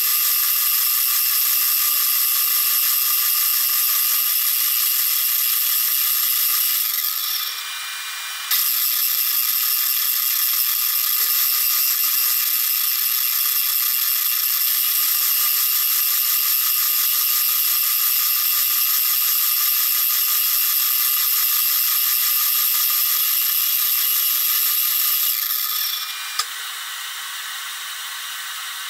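FYD-32 milling machine's cutter cutting a C45 steel bar: a loud, steady high whine of many tones. It dips for about a second some eight seconds in, and about 26 seconds in it falls to a quieter running sound.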